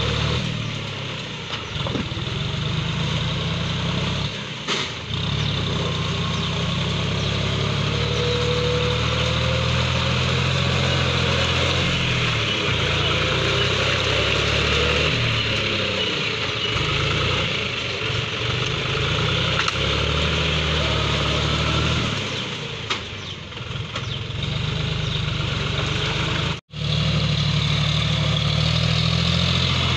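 John Deere 5036D tractor's three-cylinder diesel engine running steadily as it pulls a cultivator through flooded paddy mud. The sound briefly cuts out near the end.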